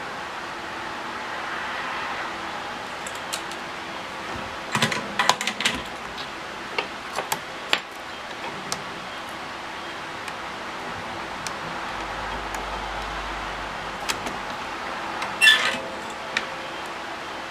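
Light clicks and small metallic taps from tools and parts being handled during soldering, in clusters, over a steady hiss. A short, louder crackle comes near the end.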